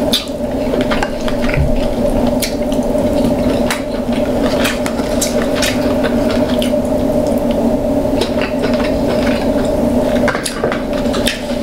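Cracking and picking at king crab claw shells while eating: scattered sharp clicks and taps of shell and utensils against dishes, over a steady hum.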